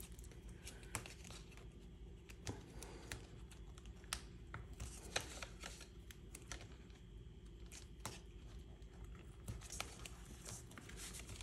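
Faint scattered clicks and tearing of Tear and Tape double-sided adhesive tape being pulled from its roll, torn off by hand and laid onto card stock.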